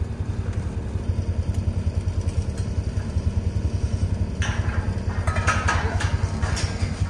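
New Holland loader's diesel engine idling with a steady low throb. About four seconds in and again a second later, a few brief clanks and rattles of steel fence panels being handled.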